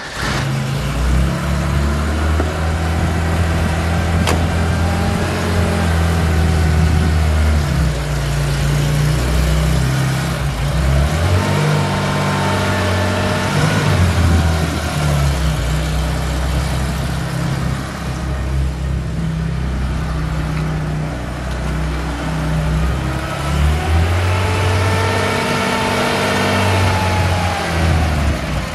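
1971 Porsche 911S's 2.2-litre air-cooled flat-six with mechanical fuel injection starting up and running as the car is driven slowly around, its note rising and falling with the throttle twice along the way.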